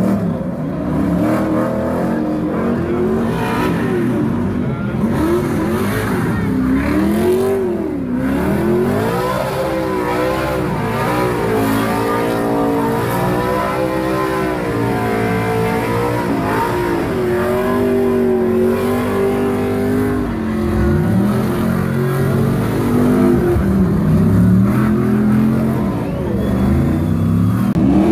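Off-road race truck engine revving hard as the truck laps a dirt track, its pitch rising and falling over and over as the driver accelerates and lifts off through the turns.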